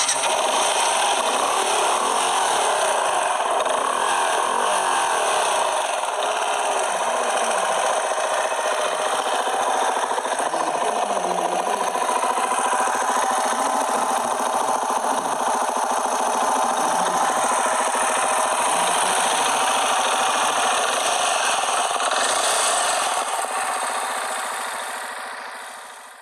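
Benelli Imperiale 400's single-cylinder engine running steadily, heard through its exhaust, fading out near the end.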